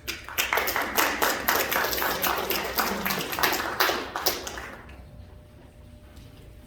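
A small congregation applauding with many hands, the claps thinning out and dying away about five seconds in.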